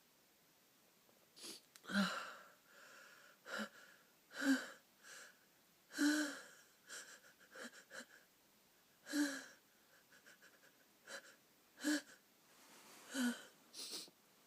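A person sneezing again and again in a fit: short, sharp sneezes every second or two, about six of them louder, with wheezy catching breaths between, the sign of a nose that keeps tickling.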